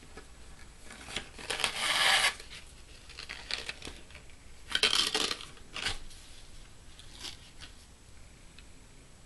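Satin ribbon and cardstock rustling as the ribbon is pulled through punched holes in a paper card. There are two louder rasping pulls, about 2 and 5 seconds in, with small paper-handling ticks between them.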